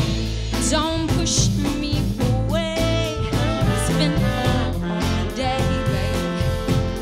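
Soul band playing live, with a woman singing lead over drum kit, electric guitar and bass, keyboard and saxophones.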